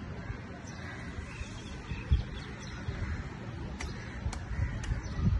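Open-air ambience with birds calling faintly, crows among them, over a steady low rumble. A few light clicks and low thumps stand out, the loudest thumps about two seconds in and near the end.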